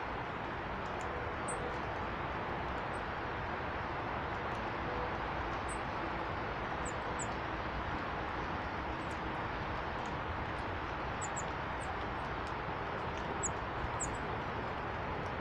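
Small birds giving short, high chirps, about a dozen scattered through, over a steady rushing background noise.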